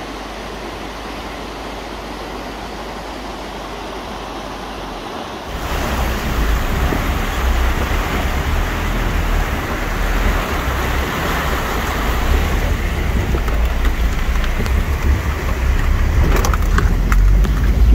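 Rushing creek water. About five seconds in, it changes to the inside of a Toyota pickup's cab as it drives through the creek: the engine running with a low rumble over the sound of rushing water, and a few knocks near the end as the truck jolts over rocks.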